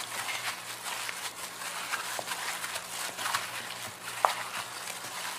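Raw chicken pieces being mixed by hand in a stainless steel bowl: irregular wet squishing and soft knocks of the pieces against each other and the bowl, with one sharper click about four seconds in.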